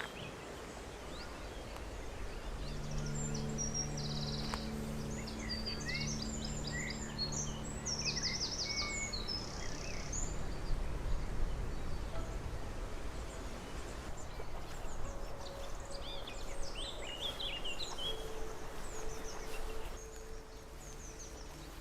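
Small birds singing and calling in many short chirps and trills over a low rumble. A steady low hum comes in for several seconds near the start and again near the end.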